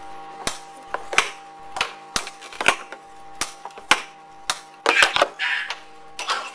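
Sharp clacks of a ball or puck being struck back and forth in a table game, irregular, about one or two a second, over a steady hum.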